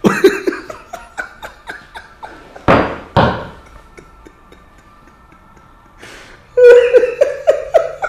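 A man laughing hard in bursts: a run of rhythmic laughs, a loud burst about three seconds in, a quieter lull, then another quick run of "ha-ha" laughs near the end.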